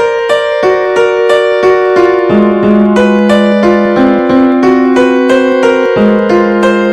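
A melody of piano-tone notes, each struck and left to ring, at about three notes a second with the pitch jumping from note to note. It is a tune generated from the digits of pi, one note per digit.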